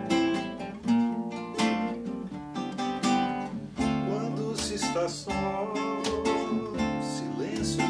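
Acoustic guitar music: rapid plucked and strummed notes over a low bass line.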